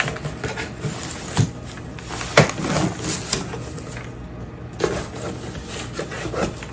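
Cardboard box and foam packaging being handled: rustling and scraping with a few short knocks as a foam-wrapped filament dryer is slid out of its carton and set on the bench.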